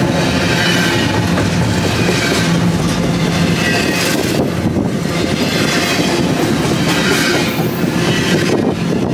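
BNSF double-stack container train's well cars rolling past at close range: a loud, steady rumble of steel wheels on the rail with clatter from the passing trucks. The higher wheel noise swells and fades every second or two.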